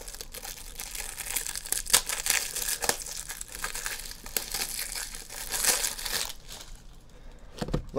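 Plastic crinkling and rustling as trading-card top loaders and their packaging are handled, with sharp crackles throughout, dying down about six seconds in.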